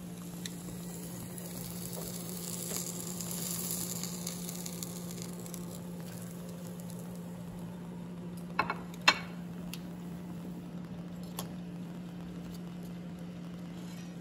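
A steady low hum throughout, with a faint hiss swelling and fading a few seconds in. A little past halfway come two sharp clinks as metal kitchen tongs set the steak down on a ceramic plate, half a second apart.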